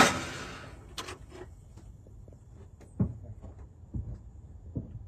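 The RV's starter cranking the engine stops right at the start without the engine catching, a no-start put down to no fuel reaching it. Then it is quiet apart from a few soft knocks about a second apart.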